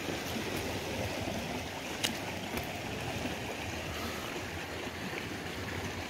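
Mountain stream running over rocks: a steady rush of flowing water, with a single sharp click about two seconds in.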